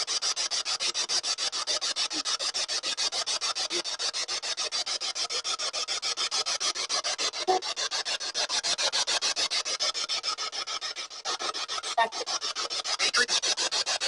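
Spirit box sweeping through radio frequencies: hissing static chopped into rapid pulses, about eight a second, with brief snatches of radio sound caught in the sweep.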